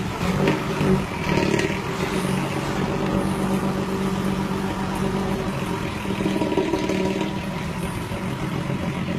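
Bus diesel engine running through a modified 'ngorok' growling exhaust: a steady low growl that swells briefly in the first couple of seconds.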